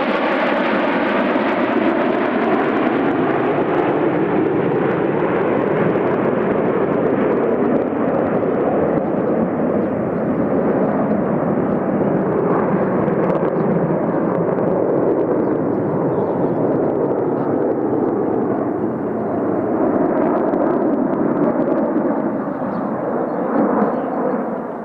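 Turbofan engines of a formation of fighter jets passing overhead: a loud, continuous jet roar with a falling whine in the first few seconds, easing slightly near the end.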